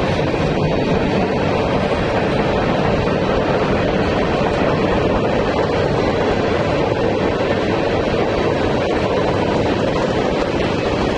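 Freight train cars rolling steadily past close by: a continuous rumble and rush of steel wheels on rail as loaded hopper cars give way to tank cars.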